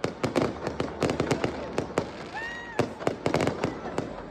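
New Year's fireworks and firecrackers going off in rapid, irregular succession: many sharp bangs and pops, overlapping one another.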